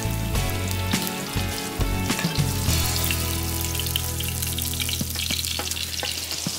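Tofu cubes frying in shallow oil in a pan, a steady sizzle, with a metal spatula clicking and scraping against the pan as the pieces are turned and lifted out.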